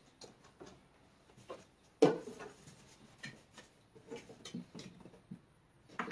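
Handling of a plastic motor-oil jug and funnel at the engine's oil filler while topping up the oil: a sharp knock about two seconds in, then scattered light knocks and clicks as the oil is poured.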